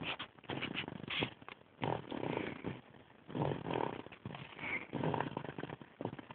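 Snoring: a rasping breath repeats about every second and a half, with quieter gaps between.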